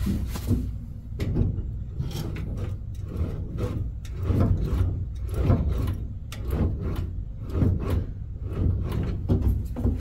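Clutch pedal being worked repeatedly through a new cable-clutch conversion on a 1966 Mustang: a string of clunks and rubbing scrapes, roughly one a second, as the cable pulls the clutch linkage, over a low steady rumble. This is the first test of the freshly fitted clutch cable.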